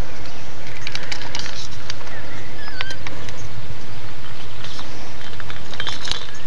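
Small birds chirping in short calls over a steady rushing background noise, with a few light clicks.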